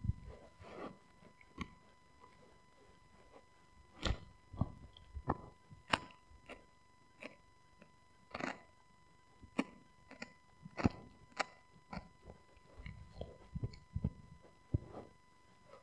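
Husky chewing a rawhide-style chew: irregular crunching and clicking of teeth on the chew, with a short lull about two seconds in.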